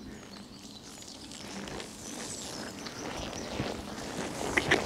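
Pony's hooves on a sand arena as it moves off and comes toward a jump. The hoofbeats are faint at first and grow louder near the end as the pony gets closer.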